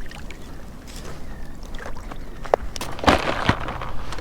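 Shallow water sloshing and splashing around an angler wading, with a few sharper splashes about three seconds in.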